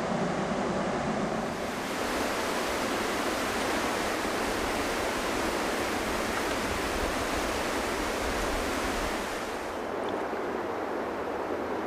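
Steady rush of whitewater river rapids, a dense even hiss; it grows brighter about two seconds in and loses its high edge near the end.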